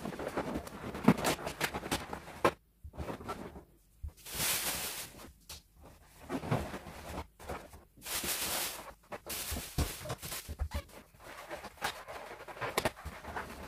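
Latex balloons squeaking and rubbing against each other as they are pressed into a balloon garland by hand, with irregular squeaks and creaks and a couple of louder rustling stretches of about a second.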